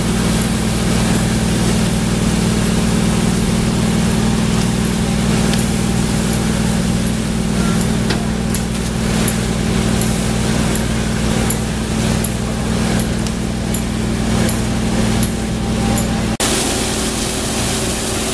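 Fire apparatus diesel engine running steadily under pump load, a low even drone, with the hiss of water spraying from hose streams over it. The sound changes abruptly about sixteen seconds in.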